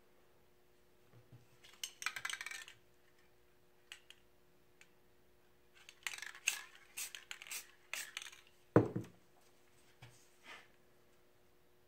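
Clinks and rattles from a spray paint can and hand tools being handled at the work table, in short clusters, with one loud clunk a little before nine seconds in as something is set down.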